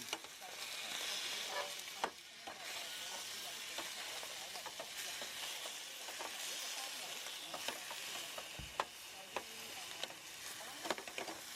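Food sizzling and frying in a pan: a steady crackling hiss with a few sharp clicks.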